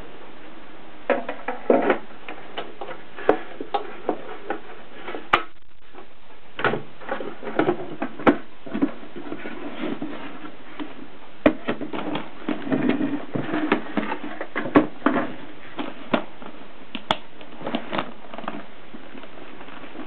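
Gossen Tippa portable typewriter and its carrying case being handled, with irregular knocks, sharp clicks and rubbing of metal and case against each other and the table.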